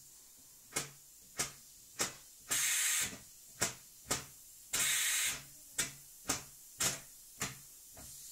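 3D-printed opposed-piston compressed-air engine puffing short hissing bursts of air, about two a second, with two longer hisses, as its flywheel is flicked round by hand: the modified engine is failing to keep running on its own.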